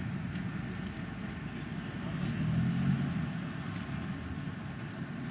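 Outdoor city ambience: a steady wash of distant traffic noise, which grows louder for about a second near the middle.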